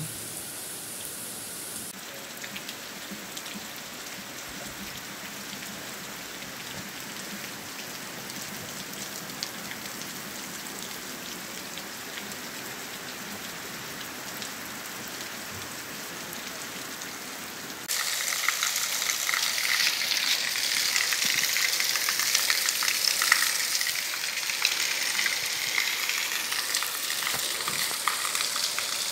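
Heavy rain falling steadily, an even hiss. About 18 seconds in it turns louder and harsher, rain pelting close by.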